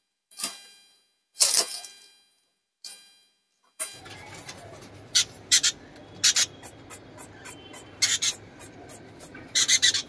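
Pineapple conures giving short, sharp, high chirps while a hand reaches into their small wire carrier cage, with rustling of the newspaper lining and the cage wire. The sounds come in a few separate bursts at first, then many quick ones, thickest near the end as a bird is taken out.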